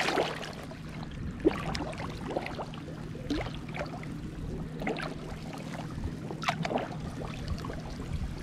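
Shallow sea water sloshing and lapping around wading legs, with a few small splashes as the feet move.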